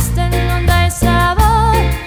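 Band music: a song played with electric bass, drums and a wavering lead melody over it, the bass holding steady low notes that change about every half second.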